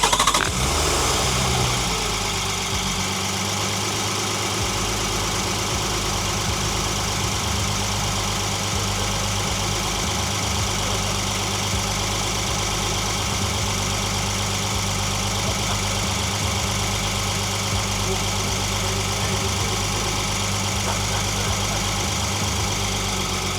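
Volkswagen Atlas engine, close-miked, starting up with a brief flare about a second in, then idling steadily.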